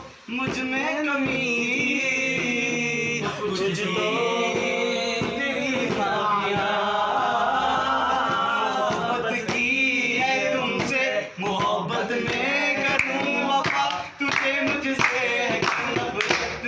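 Men singing a song unaccompanied, without instruments. Hand claps join in near the end.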